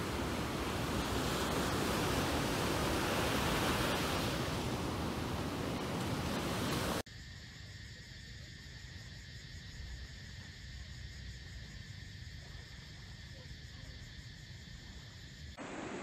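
Ocean surf breaking on a sandy beach, a steady rush of waves that swells a little midway. About seven seconds in it cuts off abruptly to a much quieter, steady high-pitched chorus of evening insects, and a louder rush comes back just at the end.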